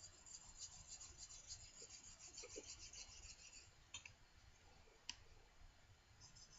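Faint, quick back-and-forth rubbing strokes of a block plane's steel iron on a sharpening abrasive as a burr is raised and honed. The strokes stop about three and a half seconds in, two light clicks follow, and the strokes start again near the end.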